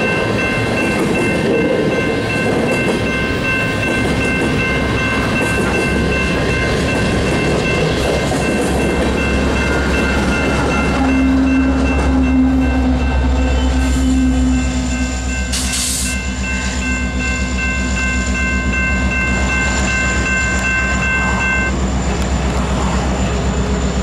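Empty coal train with BNSF diesel locomotives rolling past: steady rolling noise of the cars, with the deep engine rumble growing about halfway through. Over it runs a steady high-pitched wheel squeal, which stops a couple of seconds before the end.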